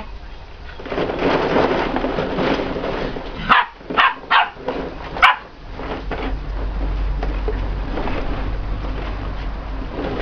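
Bearded Collie puppies yapping four times in quick succession about three and a half to five seconds in, over the rustle and clatter of plastic balls shifting in the ball pool as they play.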